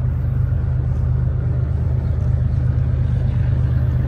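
Steady low engine rumble, even throughout with no change in pitch or level.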